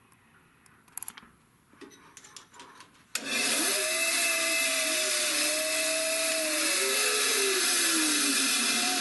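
A few light clicks, then about three seconds in a bandsaw starts up suddenly and runs steadily as it cuts the end off a wooden dowel blank; its pitch dips and recovers as the blade works through the wood.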